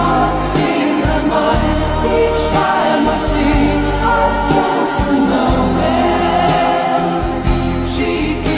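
Background music with choir-like singing over a steady bass.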